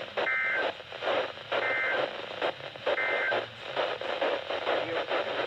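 Three short EAS end-of-message data bursts, the warbling two-tone digital SAME signal, each about a third of a second long and spaced about 1.4 s apart. They mark the end of the alert. Behind them is the hiss and crackle of weather-radio reception static.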